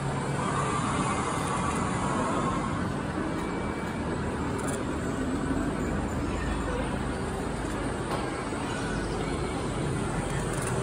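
Steady low rumble and hiss of a busy model railroad exhibit hall, with faint voices in the background.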